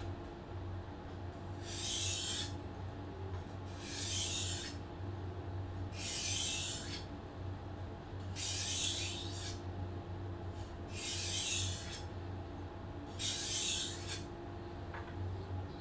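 Gyuto knife blade drawn lightly along a whetstone in six slow strokes, each a short scraping hiss about two and a half seconds apart: gentle passes to take off the last of the burr. A steady low hum lies underneath.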